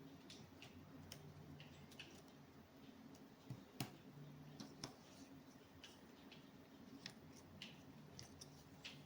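Faint clicks and taps of cardboard jigsaw puzzle pieces being handled and pressed into place, with two louder clicks near the middle, over a faint low hum.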